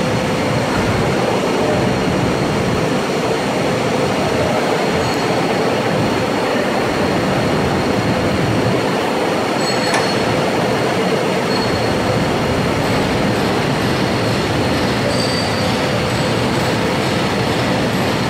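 Granite line polishing machine running: a loud, steady machine noise with a constant hum and a thin high whine, and a single short click about ten seconds in.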